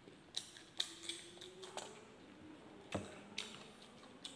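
Mouth sounds of a man eating rice and roast pork by hand: scattered soft clicks and smacks of chewing and lips, about seven separate ticks spread over a few seconds.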